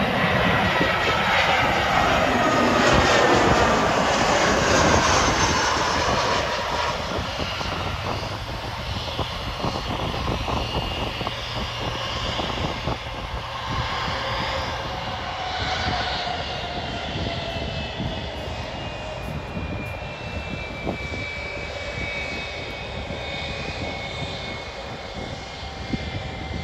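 Jet engines of an Airbus airliner passing close. The whine falls steeply in pitch over the first several seconds, then eases to a quieter, steadier jet whine with slowly sliding tones.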